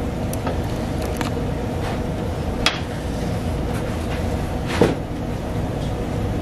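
A few sharp knocks and clicks of a sushi knife and hands working on a cutting board, the clearest about a third of the way in and again about three-quarters in, over a steady low background hum.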